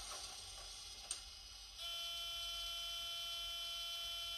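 Sound decoder (ESU LokSound 5) in an N-gauge TGV Sud-Est model sounding a steady, beep-like electronic tone at one unchanging pitch, starting about two seconds in after a quiet hiss.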